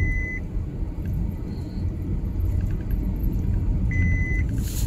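Car driving along a road, heard from inside the cabin: a steady low rumble of engine and tyres. A short high electronic beep sounds at the start and again about four seconds in.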